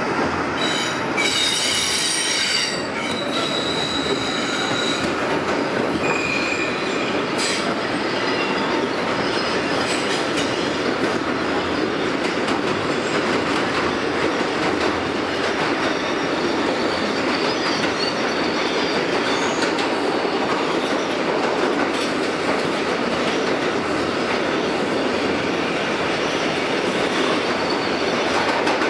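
R142A subway train running through a tunnel, heard from inside the car: a steady rumble of wheels on rail. In the first few seconds there is a high-pitched squeal of wheels on track that fades out.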